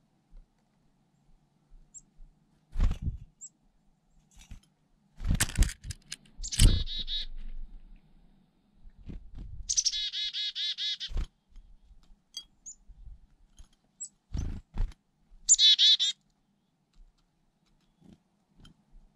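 Black-capped chickadees calling: three runs of quick, repeated high notes, the middle one the longest. Several loud low thumps sound between the calls.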